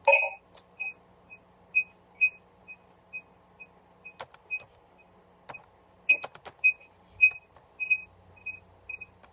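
Typing on a keyboard: irregular key clicks, about two a second, with a few sharper clacks among them.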